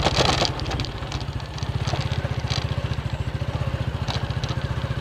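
Small motorcycle engine running steadily at low speed, a rapid, even chugging. A brief rush of noise at the very start.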